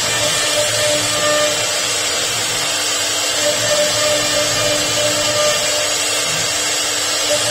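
CNC router spindle running and cutting into a wood board: a steady machining noise with a high hiss, and faint tones that come and go as the head moves.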